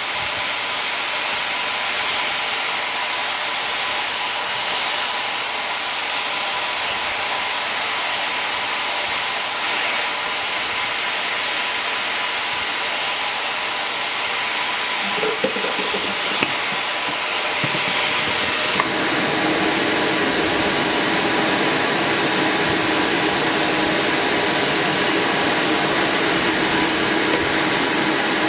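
Vacuum cleaner motor running steadily with a constant high whine. About 19 seconds in the airflow sound changes and takes on a deeper rushing note.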